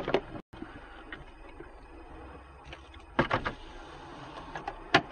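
Steady running noise inside a car, with a few short knocks or clicks about three seconds in and a sharp click near the end.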